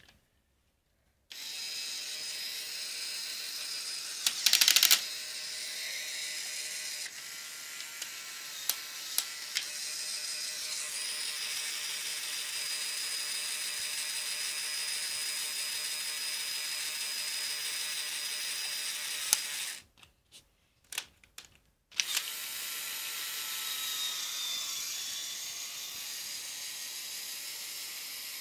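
Small Lego Technic electric motor driving the geared lifting arms of a toy truck: a steady whirring whine. It stops for about two seconds with a few clicks, then starts again. A short loud rattle comes about five seconds in.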